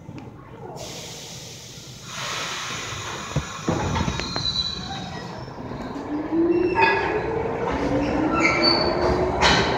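R46 subway train pulling out of a station. A hiss of air starts about two seconds in, then the traction motors whine upward in pitch as the train gathers speed, with the wheels squealing against the rails.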